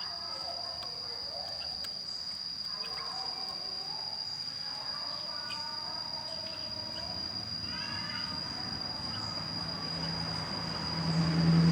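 Sooty-headed bulbul (kutilang) calling in short warbled phrases over a steady high-pitched insect drone; a low engine hum swells near the end.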